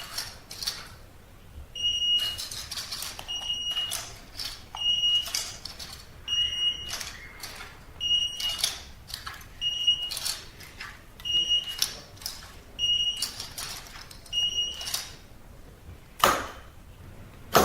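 Touch keypad of an access controller giving a short high beep at each key press, about a dozen times at a steady pace, with light taps and clicks in between as keys are entered. A louder knock comes near the end.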